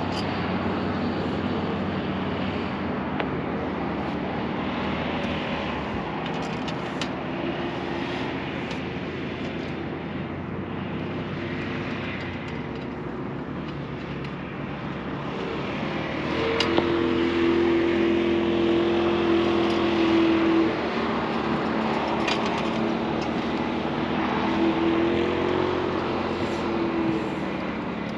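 A motor running steadily, with a louder hum that holds for about four seconds two-thirds of the way through and returns briefly near the end.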